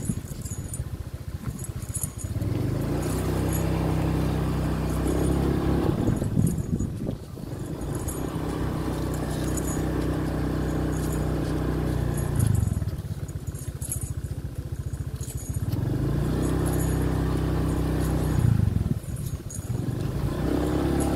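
A small motorcycle engine running at low speed: it picks up speed, holds steady, then eases back to a slow idle about three times, as if creeping along behind a walking animal. A faint metallic jingling repeats about once a second throughout.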